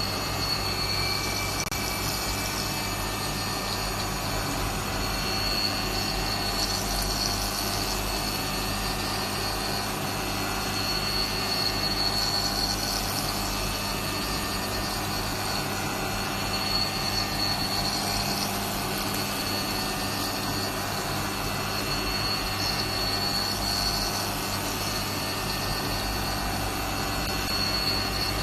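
CNC milling machine running: a steady mechanical hum and hiss, with a high whine that swells and fades every few seconds.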